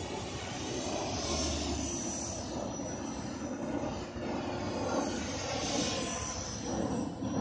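Align T-Rex 500 electric RC helicopter in flight: the 500MX brushless motor and gear whine with the main rotor blades, swelling louder twice, about a second in and again around six seconds, as the helicopter passes closer.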